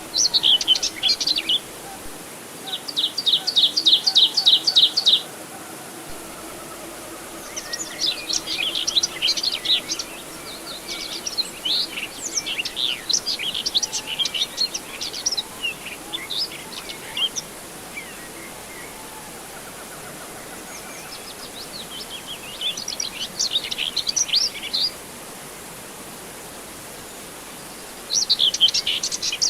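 Small birds chirping in bouts over a steady background hiss: a quick run of evenly repeated notes, about five a second, then longer stretches of jumbled, overlapping chirps with short pauses between.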